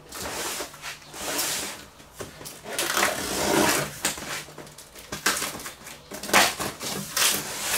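Packing tape on a cardboard box being slit with a blade and torn, in rasping stretches about a second long, then cardboard flaps rustling and knocking as they are pulled open.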